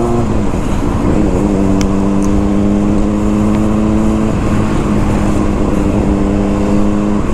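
Honda CBR600RR's inline-four engine running at a steady cruise as the bike is ridden, its note dipping slightly near the start and again about four seconds in. A heavy low rumble of wind on the microphone sits under it.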